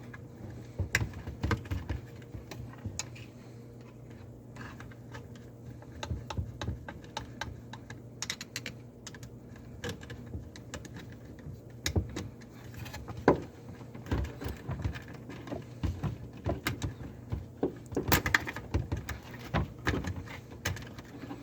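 Scattered small clicks, ticks and light knocks of hands and tools working on a garbage disposal's electrical wiring and wire nuts, with a couple of sharper knocks about two-thirds of the way through.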